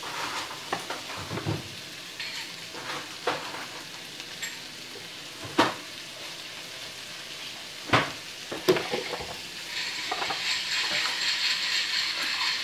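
Shrimp, hotdog and vegetables sizzling in a frying pan, stirred with a spatula at first, with a few sharp clacks of the spatula against the pan in the middle. The sizzle grows louder near the end.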